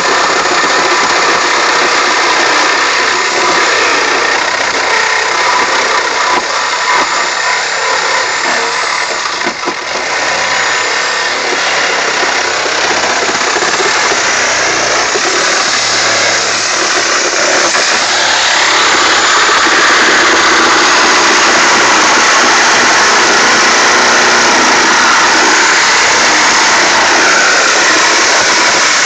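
Corded reciprocating saw cutting through a car's sheet-metal roof, running without a break except for a brief dip about ten seconds in. It runs a little louder and steadier over the last third.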